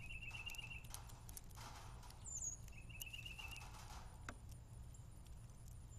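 Faint birdsong: a small bird's quick trill of about eight notes, given twice, with a brief high thin downward whistle between the two. Soft rustles, a single sharp click a little after 4 s, and a steady low hum lie underneath.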